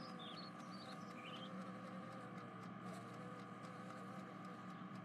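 Faint steady background ambience with a low hum, and a few short high chirps in the first second or so.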